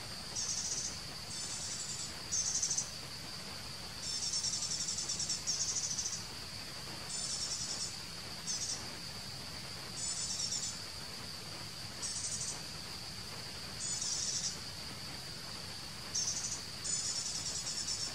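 Forest insects: a steady high-pitched drone, with rapid pulsing trills, higher still, breaking in over it every second or two, some short and some over a second long.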